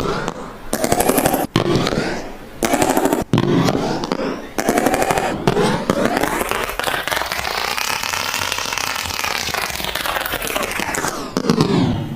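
Paint being stirred and mixed, a dense run of rapid wet clicks and crackles that swells and fades in waves, with brief breaks in the first few seconds.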